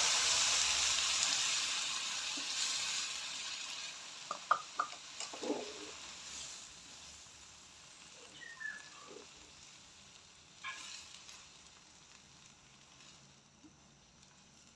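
Cold milk hitting a hot pan of fried chicken-and-flour filling, sizzling loudly and then dying away over several seconds as the milk cools the pan. A few knocks of the stirring spoon against the pan come about four to five seconds in.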